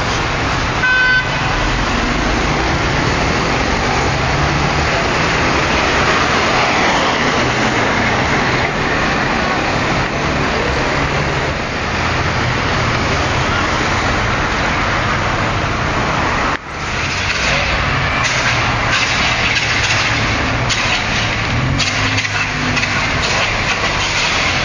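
Steady road traffic noise with a short car horn toot about a second in.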